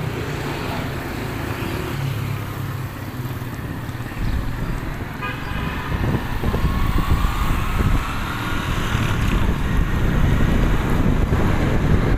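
Motorcycle engine running as the bike pulls away and picks up speed. Wind rumbles heavily on the microphone from about four seconds in. A short toot sounds about five seconds in.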